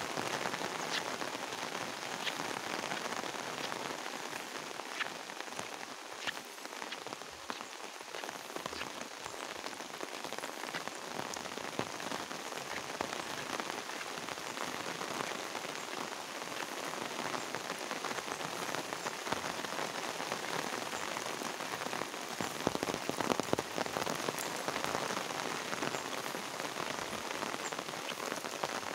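Steady rain falling, an even hiss dotted with many small drop ticks, getting a little heavier for a few seconds near the end.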